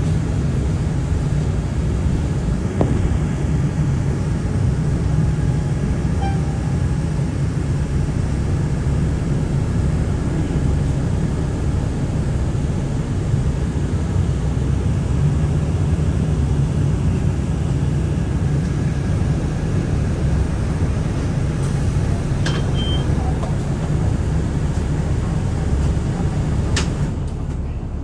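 Steady engine and road rumble inside a moving city transit bus, with a short high beep about two-thirds of the way through.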